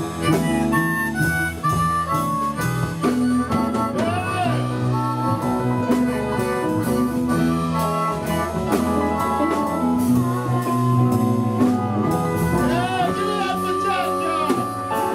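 Live blues band playing: bass, drums and a lead instrument holding and bending notes over a steady beat.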